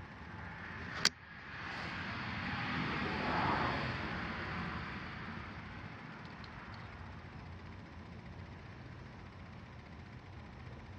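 A single sharp click about a second in, then a broad rushing noise that swells and fades over about four seconds, over low steady background noise.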